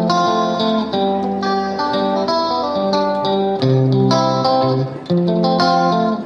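Background music: a melody of plucked string notes, changing about twice a second.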